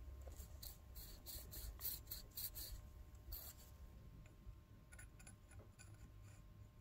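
Faint clicks and light scrapes of a steel adjustable-wrench jaw being handled in gloved hands as it is oiled and fitted back into the wrench body: a quick run of small ticks in the first half, and a few softer ones later on.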